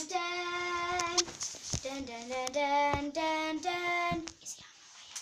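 A child singing a wordless "dun dun dun" jingle: a run of held notes stepping up and down in pitch, which stops about four seconds in. A few sharp knocks come in among the notes.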